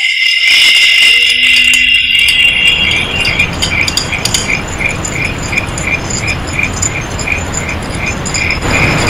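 A loud, high-pitched squeal with scattered clicks, which gives way after about two and a half seconds to a regular ticking, about two and a half beats a second, over a steady hiss.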